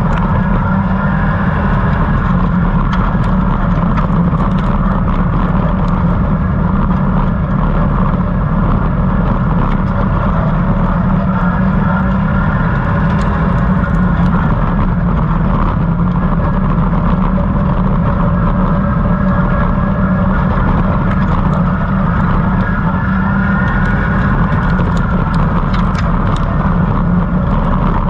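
Stock hatch racing car's engine running flat out under race load, heard from inside the stripped cabin as a loud, steady din, with occasional sharp ticks.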